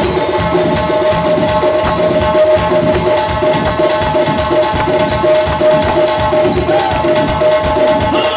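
Fast, dense dovul-style hand-drum rhythm played on a Roland electronic keyboard's percussion sounds, over a steady held synth tone.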